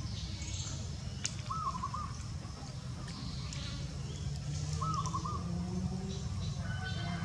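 Outdoor ambience with a steady low rumble and two short chirping calls, about a second and a half in and again near five seconds.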